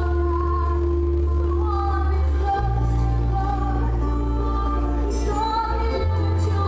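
Live worship music: a woman singing a slow melody over held low chords, which change about two and a half seconds in and again near the end.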